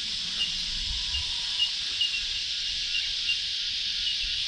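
Steady high-pitched insect chorus, with a short chirp repeating about twice a second.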